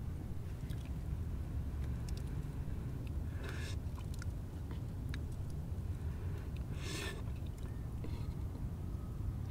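Wooden spoon stirring herbal tea in a clay pot and tea being sipped from the spoon: scattered small clicks and two short wet sounds, about three and a half and seven seconds in, over a steady low rumble.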